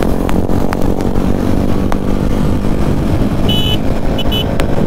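Motorcycle engine running at steady cruising speed with wind rumble on the mic, heard from the rider's own bike. A couple of short high-pitched beeps sound about three and a half seconds in.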